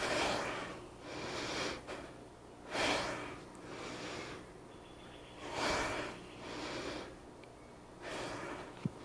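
A woman's heavy breathing from exertion during a TRX chest fly set. A short, forceful breath and then a longer, softer one repeat about every three seconds. A brief click comes near the end.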